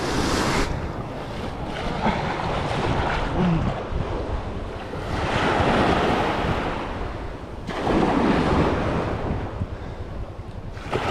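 Ocean surf breaking and washing up the beach at the water's edge, swelling and falling every few seconds, with wind buffeting the microphone.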